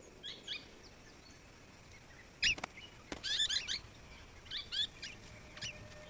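Golden-shouldered parrots giving short, sharp chirping calls in scattered clusters, busiest about three seconds in, with a single sharp click about two and a half seconds in.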